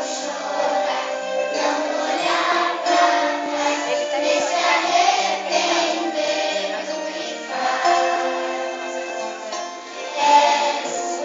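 A group of young children singing a Christmas song together, with musical accompaniment.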